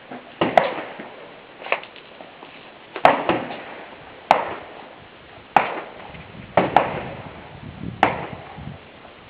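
.40 caliber pistol firing single shots at an irregular pace, about ten in all, each crack followed by a short reverberant tail.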